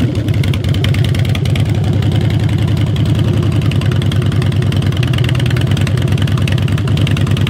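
2007 Harley-Davidson Night Train's V-twin engine running at a steady idle through its exhaust pipes, now fitted with torque cones to restore back pressure, with an even pulsing beat.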